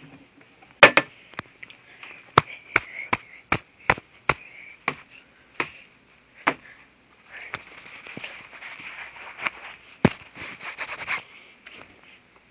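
Handling noise of a camera being knocked about and rubbed. About a dozen sharp knocks come in the first six seconds or so, the loudest about a second in. Then several seconds of scraping and rubbing follow, with one heavy knock in the middle.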